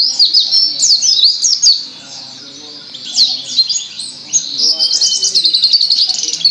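Pleci (white-eye) songbird singing a fast, dense run of high chirps and twittering notes, filled with lovebird-like calls it has been tutored to copy. The song eases off briefly about two seconds in, then picks up again just as thickly.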